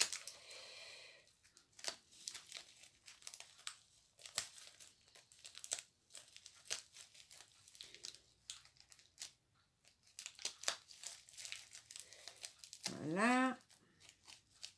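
Plastic packaging crinkling and crackling as it is handled and torn open, in irregular bursts of small crackles. Near the end comes a short hummed vocal sound that rises and falls in pitch.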